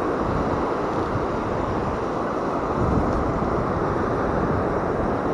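Surf washing steadily onto the beach, with wind rumbling on the microphone.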